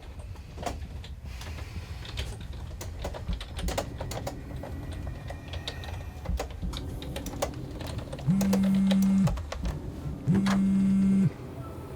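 Computer keyboard typing, a patter of key clicks. About eight seconds in, a phone goes off with two steady low buzzes, each about a second long with a second's gap between them.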